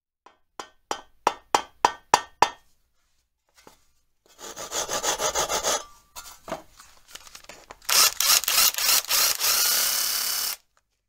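Hand-tool sounds: about seven sharp, evenly spaced knocks, then two spells of rapid sawing strokes through wood, the second louder.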